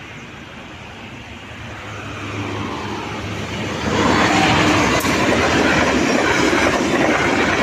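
Diesel locomotive hauling a passenger train, approaching and growing louder, then passing close by about four seconds in, followed by the steady noise of the coaches' wheels running over the rails.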